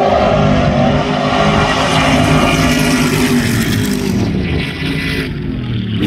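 Stadium Super Truck V8 engines running hard as the trucks race past on the circuit, the engine note dropping slightly and fading near the end.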